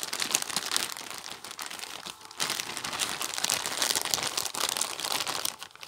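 Clear plastic zip-lock bags crinkling as hands pull small bagged packets out of a larger bag, louder from about two and a half seconds in.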